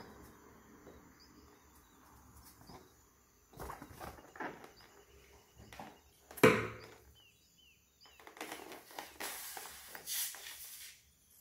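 Hands handling a filled rubber novelty balloon over a plastic bowl: light rubbing and rustling, one sharp knock about six and a half seconds in, a few short squeaks, then a hissing, scraping stretch near the end as scissors cut into the balloon.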